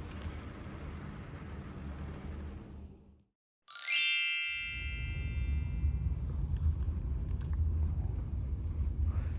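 A single bright chime rings out about four seconds in and dies away over about a second. It is set between stretches of low, steady rumbling noise, which cut out completely just before the chime and come back louder after it.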